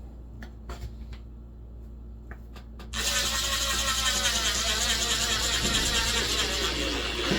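A few light clicks, then about three seconds in a power drill starts driving a 1-5/8 inch screw through masonite and foam insulation into plywood. It runs steadily under load, its pitch wavering slightly.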